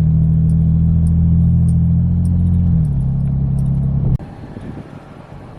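In-cab sound of a 5th-gen Toyota 4Runner's 4.0 L V6 through a Carven high-clearance dump-exit exhaust while cruising at about 20–30 mph. A steady, deep exhaust drone drops a little in pitch about three seconds in, then cuts off abruptly about four seconds in, leaving only a faint low hum.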